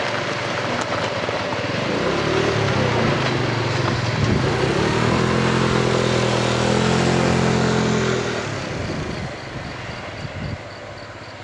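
Engine drone at a steady pitch. It swells over the first few seconds and fades about eight seconds in, followed by a faint fast ticking, about four a second.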